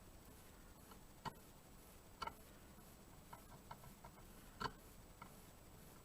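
A few faint, short clicks at irregular intervals, about six in all, as a home-cut brass key is slid in and out of a pin-tumbler lock cylinder, its pins clicking over the freshly smoothed cuts.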